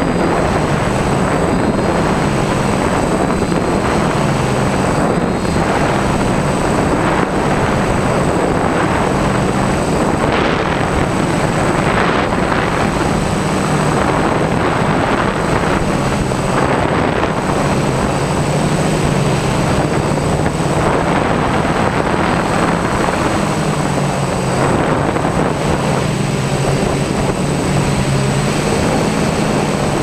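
DJI F550 hexacopter's six electric motors and propellers droning while it hovers, heard from the onboard camera; the hum wavers in pitch as the motors keep adjusting against the wind. Wind rushes over the microphone, and a thin high whine holds steady.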